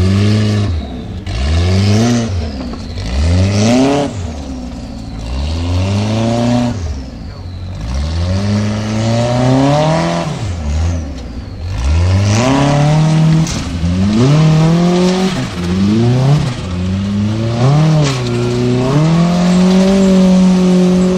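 Formula Offroad buggy's engine revving hard and dropping back over and over as it climbs a steep, loose dirt hill. It surges about a dozen times, and near the end it holds one long high rev.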